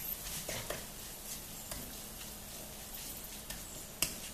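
Wooden spatula stirring and scraping shredded leeks and carrots in a non-stick wok, with soft scattered taps and one sharper knock about four seconds in, over a faint sizzle.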